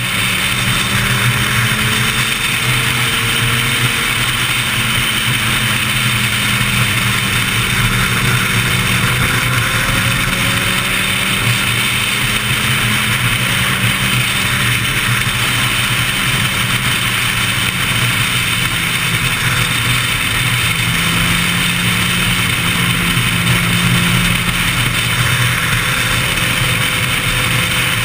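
Sport motorcycle engine running steadily at highway speed, its note shifting slightly up and down a few times, under a constant rush of wind noise.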